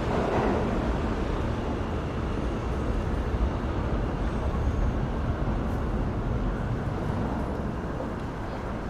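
New York City subway train rumbling in the station, a low steady rumble with some rattle that slowly fades as the train moves off.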